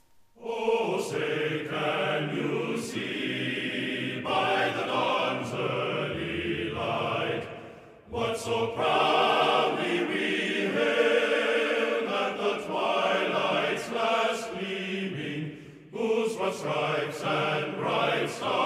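Outro music with choral singing, in long phrases that break briefly about 8 and 16 seconds in.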